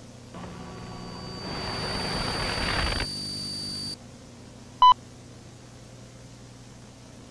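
Synthetic tape-glitch sound effects: a hissing, droning swell builds for about three seconds and cuts off abruptly, a high thin tone lingers a moment longer, then one short, loud beep sounds, all over a low steady hum.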